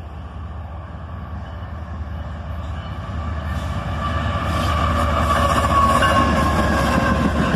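A CSX ES44AH diesel locomotive leading an intermodal train approaches. Its low engine rumble and a high whine grow steadily louder as it nears.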